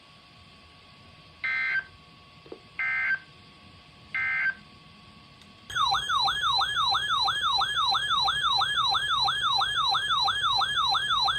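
Three short bursts of EAS digital data tones, the end-of-message code closing a warning. Then a loud electronic warbling alert tone starts, sweeping up and down about three times a second like a siren.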